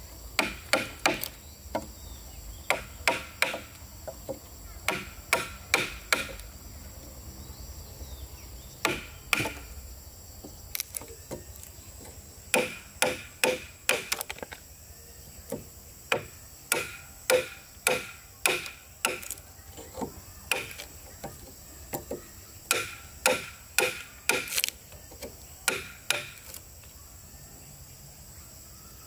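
Hammer driving nails into timber: sharp, ringing strikes in quick runs of several at a time, with short pauses between runs.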